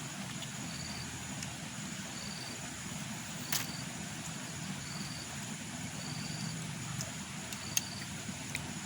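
Insects chirping in a regular repeating pattern, high-pitched, about once a second, over a low steady hum, with a few sharp clicks, the loudest about three and a half seconds in and near the end.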